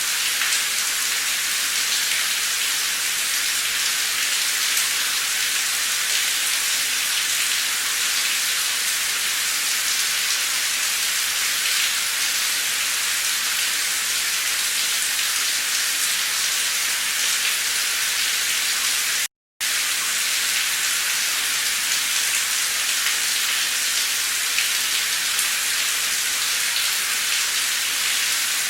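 Heavy torrential rain pouring steadily, a dense even hiss of downpour. The sound cuts out to silence for a fraction of a second about two-thirds of the way through.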